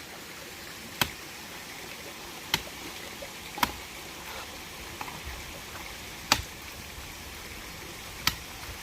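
Five sharp knocks at irregular intervals, the loudest a little past the middle, over a steady rushing background noise.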